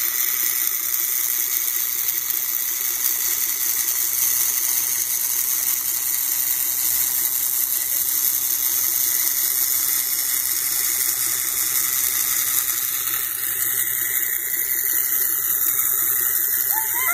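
Swimming pool's circulation running: a steady rush of water from the return jet, with a low steady hum.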